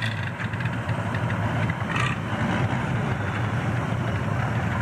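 Antique farm tractor engine running steadily.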